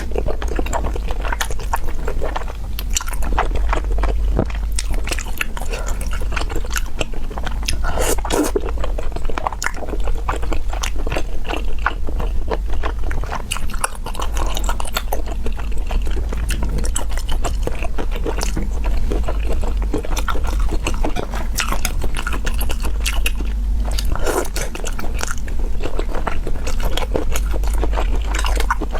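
Close-up biting and chewing of an Orleans-style roast chicken leg, with many small wet clicks and crackles of the meat being chewed. A steady low hum runs underneath.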